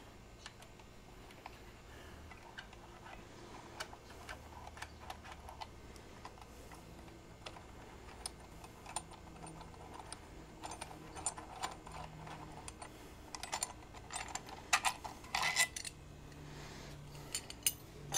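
Air filter screws being spun out by hand and handled: scattered light metallic clicks and ticks, coming thicker and louder in the second half.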